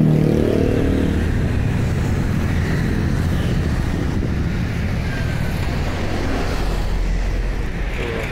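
An engine idling steadily, a deep low hum, slightly louder in the first second.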